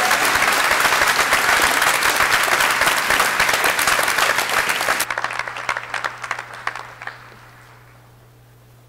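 Audience applauding at the end of a sung performance: dense clapping for about five seconds, then thinning to scattered claps that die away near the end.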